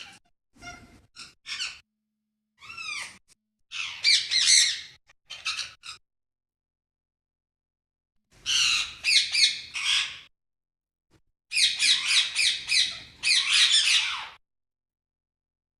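Pet parrots squawking and screeching in bursts: a few short calls and gliding calls at first, then three long bouts of rapid, shrill, repeated screeches with short silent pauses between them.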